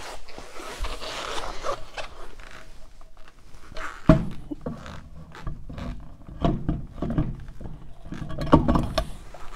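Wire-spoke steel wheel being hung on its hub and the lug nuts started by hand: metal scraping on metal with scattered clinks and knocks, and a sharp knock about four seconds in.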